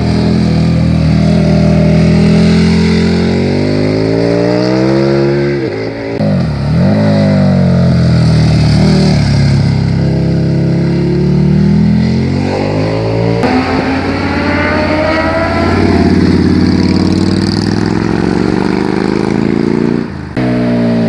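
Motorcycle engines revving hard as the bikes are ridden through a hairpin bend. The engine note climbs under acceleration, dips sharply and climbs again around six seconds in, then changes abruptly to a different bike about thirteen seconds in and again near the end.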